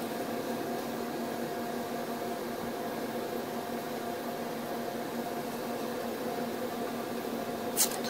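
A steady mechanical hum holding a few fixed tones over a faint hiss, with one brief sharp noise near the end.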